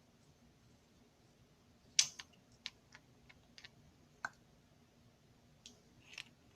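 Small clicks and taps from an aluminium flashlight being handled and taken apart: a sharp knock about two seconds in, then a scatter of lighter clicks.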